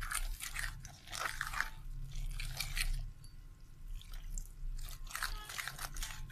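A spoon stirring thick, lumpy gram-flour (besan) pakora batter in a bowl, making a series of irregular scraping, squelching strokes.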